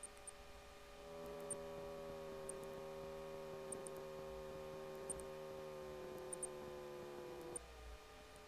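Faint, steady drone of the WT9 Dynamic's engine leaking through the cockpit intercom audio, its pitch sinking slowly; it grows louder about a second in and drops back just before the end. Faint high clicks sound about once a second.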